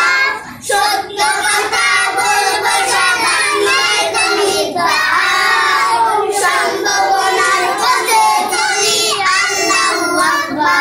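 A small group of young children singing a song together in unison, with brief pauses for breath between phrases.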